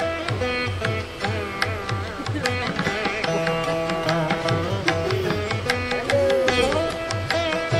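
Background instrumental music in an Indian classical style: a plucked-string melody with bending notes over a steady hand-drum beat.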